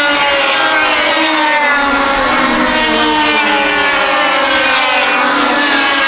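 Several 100cc two-stroke kart engines running at high revs, overlapping, their pitch sliding down as the karts go by.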